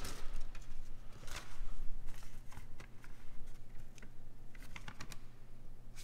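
Paper instruction sheet rustling and crackling as it is handled, a scatter of short irregular clicks, over a low steady hum.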